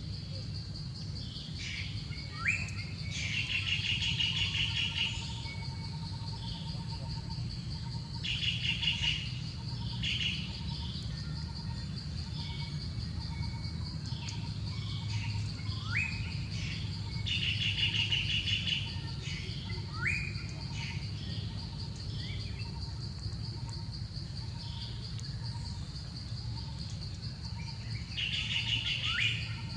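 Wild birds calling over a steady high insect drone. Bursts of rapid trilling come every several seconds, with short rising whistle notes between them.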